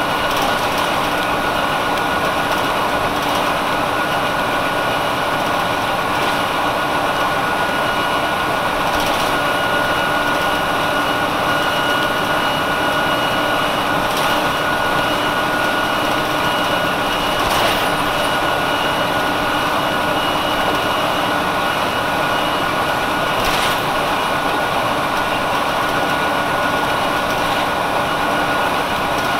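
A 1999 Nova Bus RTS-06 transit bus with its Detroit Diesel Series 50 diesel engine running steadily: an even drone with a constant high whine and no change in pitch. A few brief knocks or rattles come through it.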